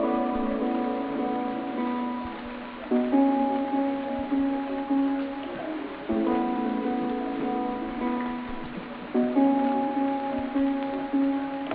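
Background music: soft held chords, a new one struck about every three seconds and left to fade.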